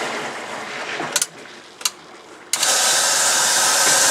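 A washing machine's steady rushing machine noise dies away, two sharp clicks follow, and then the noise cuts back in suddenly about two and a half seconds in.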